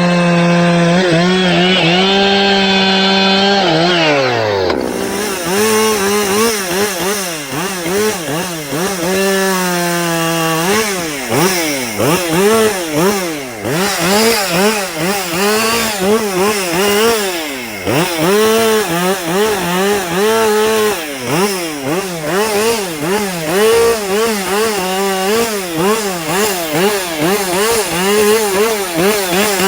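Two-stroke chainsaw running at high revs. About four seconds in its pitch drops sharply, then it climbs again and keeps dipping and recovering in quick, repeated surges as it works through wood.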